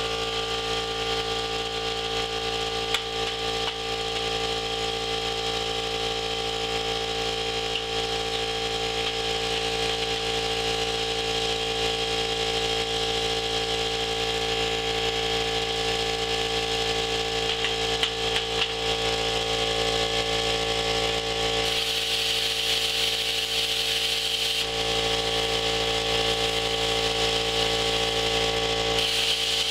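Steady hum of running shop machinery, holding several fixed tones with a hiss above them. The hiss drops away for a few seconds about two-thirds of the way through and comes back near the end.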